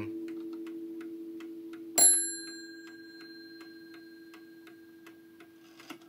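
Sessions mantle clock ticking steadily as the ring of an earlier strike fades. About two seconds in it strikes once, a sharp stroke that rings on and slowly dies away, made by turning the minute hand to set off the striking.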